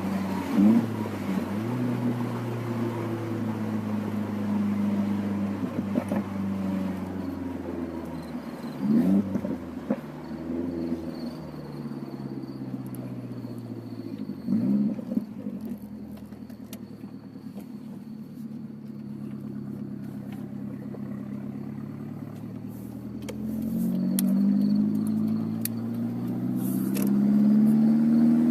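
Nissan 200SX S13's turbocharged CA18DET four-cylinder running through a 3-inch Japspeed exhaust, idling with three short throttle blips, then its engine speed climbing near the end.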